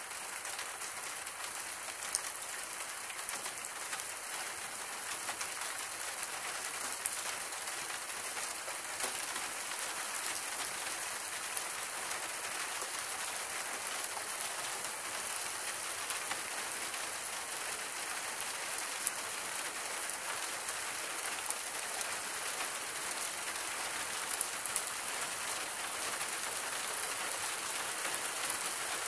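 Steady rain falling on a wet stone-tiled floor: an even hiss of drops on the paving, with a few louder single drop ticks here and there.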